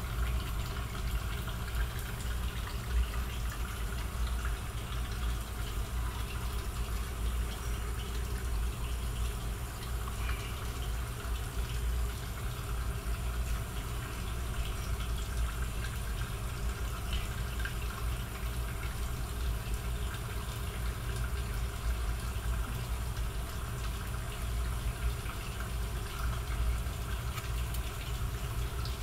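Steady low mechanical hum with a hiss over it, the constant running noise of kitchen equipment, with a few faint light ticks now and then.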